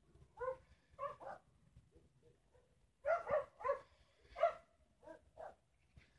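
A dog barking repeatedly in short pitched barks, loudest in a run of four about three seconds in.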